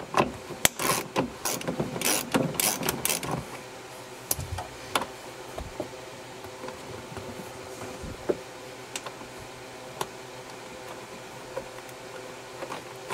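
Ratchet and socket clicking while backing out a heater-assembly mounting bolt: a quick run of ratchet strokes for the first few seconds, then only a few scattered clicks.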